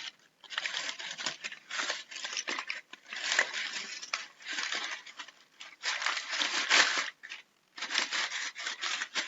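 A hand-worked object giving a rough crinkling, scraping noise in irregular strokes with brief pauses: a foley stand-in for a wooden board sliding over a tree trunk.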